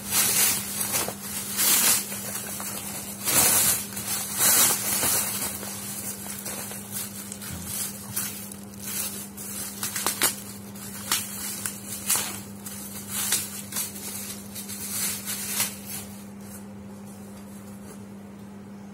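Thin plastic packaging crinkling and rustling in irregular bursts as it is unwrapped by hand; the crinkling dies away near the end. A steady low hum runs underneath.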